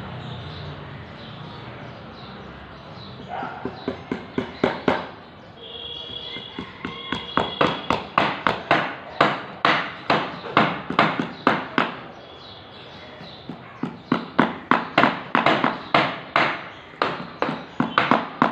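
Repeated hammer blows, two or three a second, in two runs with a pause of about two seconds between them.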